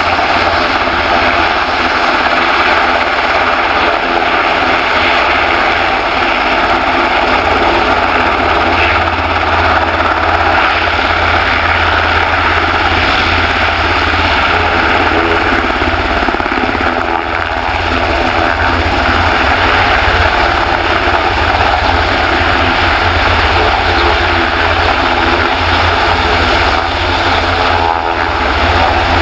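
Sikorsky S-92A helicopter's twin turboshaft engines and main and tail rotors running steadily as it taxis, lifting into a low hover near the end.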